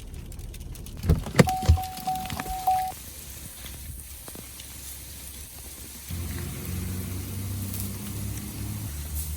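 Car sounds on arrival: a few knocks and clunks with a short steady electronic chime about a second in, then a low steady motor hum that starts about six seconds in.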